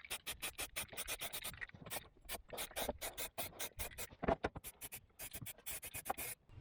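Rapid scratching strokes of a hand tool on metal, several a second in short runs with brief pauses.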